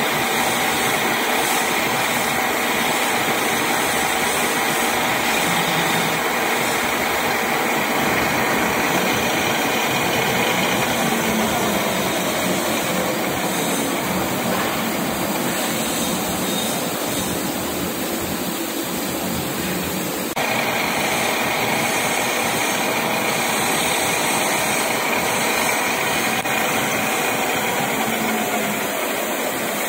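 Metal lathe running steadily while turning a small steel hand-pump valve part. The sound changes abruptly about twenty seconds in.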